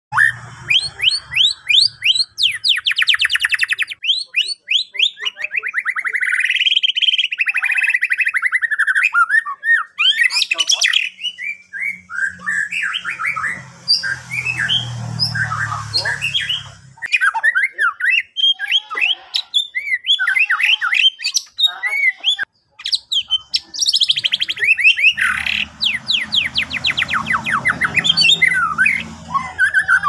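White-rumped shama singing a loud, varied song of whistled glides, warbled phrases and fast trills, with bursts of rapidly repeated notes near the start and again near the end.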